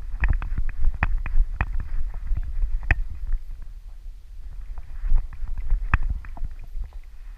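Handling noise from a GoPro camera mounted on a dog's harness as the dog moves about: a low rumble with irregular knocks and clicks, thinning out and getting quieter in the second half.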